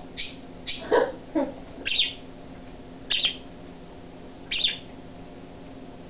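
African grey parrot vocalising with short high chirps and whistles: two quick chirps at the start, a lower sliding call about a second in, then three single whistled notes spaced a second or more apart.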